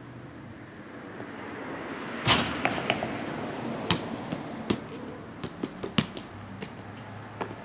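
A basketball hitting the hoop hard about two seconds in, then bouncing several times on the concrete driveway as single sharp knocks.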